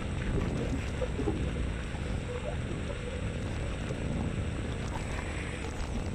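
Steady riding noise from a Xiaomi M365 electric scooter underway: wind rumbling on the microphone with road noise.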